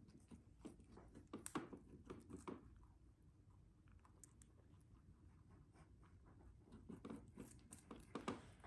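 Near silence: quiet room tone with faint scattered clicks and rustles, a few about one to two and a half seconds in and again near the end.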